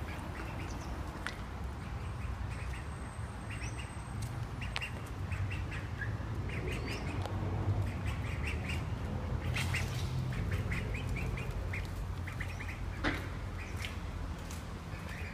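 Mallard ducks quacking in short runs of quick calls, over a low steady rumble.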